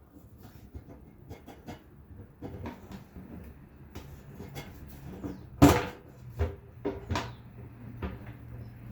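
Clicks and knocks of metal fuel-pump mounting parts being handled and pressed onto the tank's gasket and studs, with one sharp knock a little over halfway through followed by a few lighter ones.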